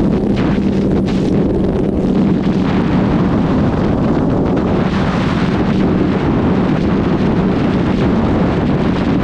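First-generation Suzuki GSX1300R Hayabusa's inline-four engine running at a steady pitch at motorway speed, under heavy wind rush on the microphone.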